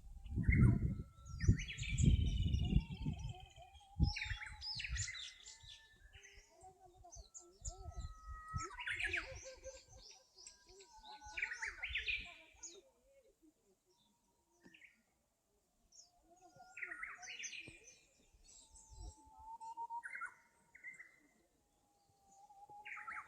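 Wild birds singing in a forest, short whistled and warbled songs coming every few seconds from more than one bird. Low rumbling thumps sound in the first few seconds and again briefly about eight seconds in.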